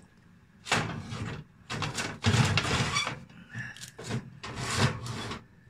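A metal baking tray being slid into an oven, scraping and clattering on the oven shelf in three or four rough bursts.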